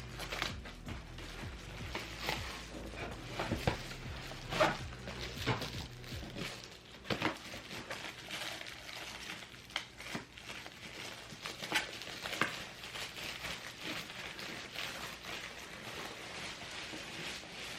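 Packaging being handled while lights are unboxed: irregular clicks, knocks and rustling of plastic and cardboard.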